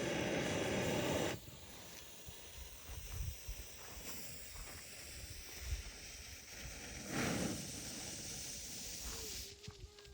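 Colour-change smoke bomb hissing as it burns and pours out smoke: a loud rush of hiss for about the first second and a half, then a quieter steady hiss with a brief swell about seven seconds in, fading near the end.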